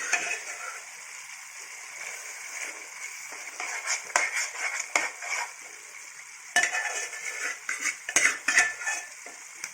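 A spoon stirring, scraping and clinking against a pot as mashed sorrel paste is mixed into simmering chicken curry, over a steady sizzle. The clinks come in two spells, around four seconds in and again from about six and a half seconds.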